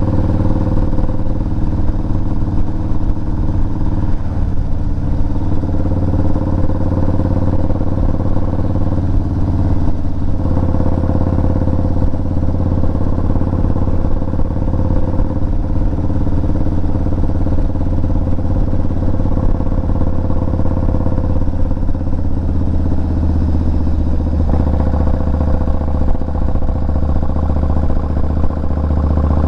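Yamaha Eluder's V-twin engine running steadily at road speed, heard from the moving motorcycle. The engine note changes a few times, most plainly about three-quarters of the way through.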